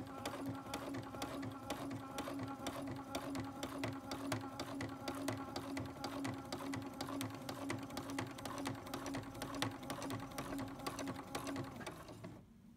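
Domestic sewing machine stitching free-motion embroidery: a steady motor hum with a rapid, even clatter of the needle, stopping near the end.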